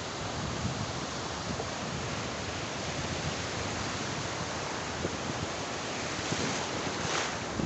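Sea surf breaking on a beach: a steady rush of waves washing into the shallows, a little hissier near the end.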